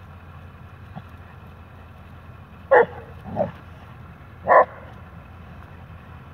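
Dogs barking while play-wrestling: two short, sharp barks about two seconds apart, the first followed half a second later by a softer, lower bark.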